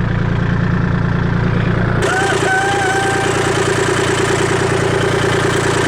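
Engine idling steadily. About two seconds in the sound changes abruptly to another steady engine running with an even, rapid pulse.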